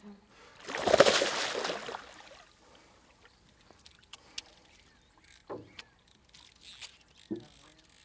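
A loud splash of water about a second in, lasting about a second, followed by a few light knocks against a boat.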